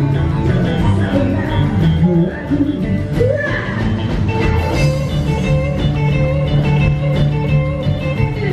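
Live rockabilly band music: electric and acoustic guitars playing over drums.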